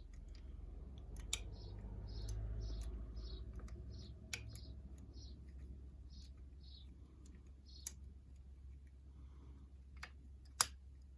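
Small metallic clicks of a tension tool and hooked wire pick working the levers of a 3-lever mortise lock, a few sharp clicks spaced seconds apart, the loudest near the end.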